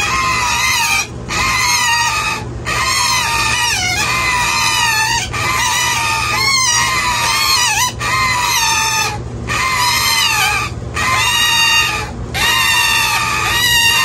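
Indian ringneck parakeet chicks begging for food during hand-feeding. They call loudly over and over, one long wavering call roughly every second with short breaks between.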